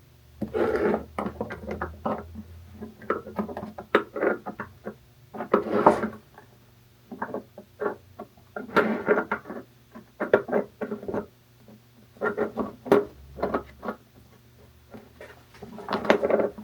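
Background music with plucked guitar, in phrases separated by short pauses.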